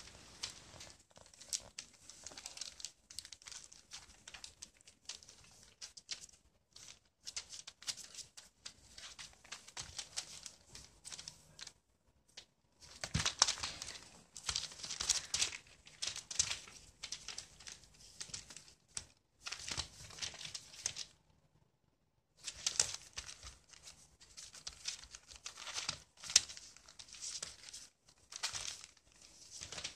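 Newspaper crinkling and rustling under two kittens wrestling and scrabbling on it, in irregular bursts with short pauses; the busiest, loudest stretches come about halfway through and again in the later part.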